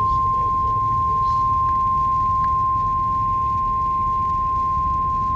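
NOAA Weather Radio 1050 Hz warning alarm tone: one steady, unbroken high beep that announces a new warning broadcast, here a tornado warning. A low rumble of radio noise sits underneath.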